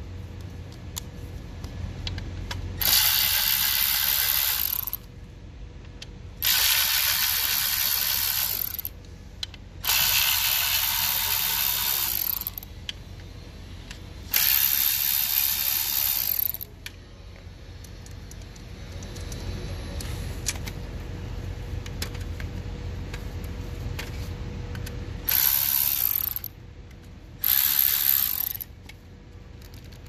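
Cordless electric ratchet running in six bursts, four of about two seconds each, then two shorter ones near the end, backing out T20 Torx screws.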